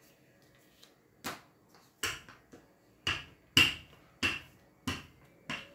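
Wooden rolling pin knocking against the table as dough is rolled out: seven sharp knocks, roughly one every half second to second.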